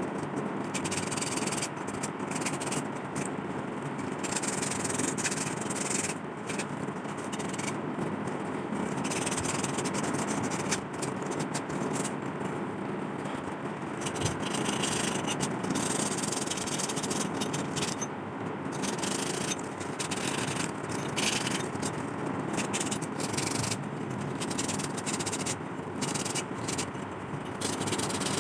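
Sandpaper rubbing rust off the metal of an old lantern by hand, in continuous back-and-forth strokes.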